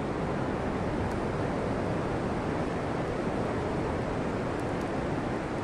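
Steady wash of ocean surf breaking on a sandy beach, with wind noise on the microphone.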